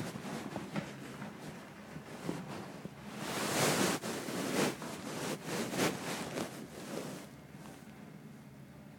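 Handling noise: fabric rustling and light knocks rubbing against the camera's microphone. It is irregular, loudest around three to four seconds in, and dies down to a faint hiss near the end.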